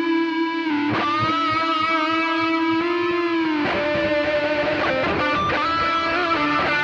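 ESP LTD H-401QM electric guitar with DiMarzio Titan pickups playing held lead notes through an effects processor and delay, each note picked and left to ring, with a downward bend about halfway through.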